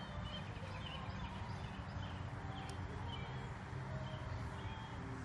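Outdoor ambience: a steady low rumble with small birds chirping again and again in short, high notes.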